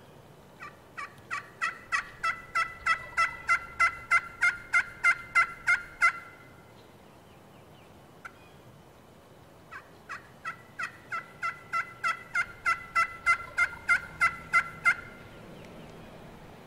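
Turkey call worked by a hunter, giving hen yelps: two long runs of about sixteen yelps each, about three a second, each run growing louder, the second starting a few seconds after the first stops.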